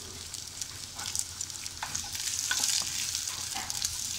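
Diced onions sizzling in hot oil in a nonstick pan as they are sautéed, stirred with a wooden spoon that scrapes and clicks against the pan. The sizzle swells a little about halfway through.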